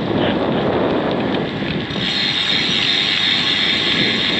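Wind rushing and buffeting over an action camera's microphone while riding a road bike at speed, with the rolling noise of tyres on a wet road. A brighter hiss joins about two seconds in.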